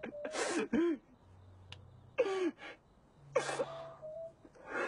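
A man crying: breathy, gasping sobs with a whimpering voice, coming in about four short bursts.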